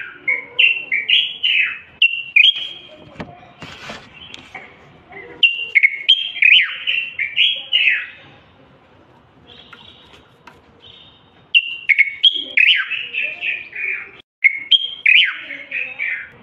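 Bulbul singing in three bursts of quick, loud whistled phrases. Each note slides sharply up or down, and there are pauses of a few seconds between the bursts.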